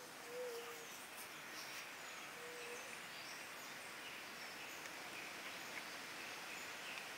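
Faint forest ambience: scattered short, high bird chirps over a steady background hiss, with two short low hoots about two seconds apart near the start.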